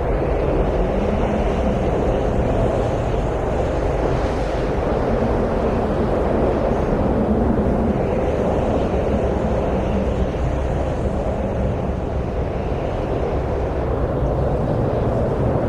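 Steady wind noise, a deep, even rush with no gusts standing out.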